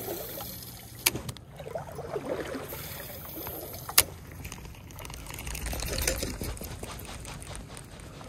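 Steady trickle of stream water, with a sharp click from a spinning reel about a second in and another about four seconds in, and the reel being handled between them.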